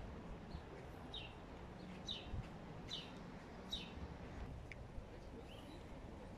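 A bird calling: short high chirps that fall in pitch, repeated roughly once a second and growing fainter after about four seconds, over faint steady background noise.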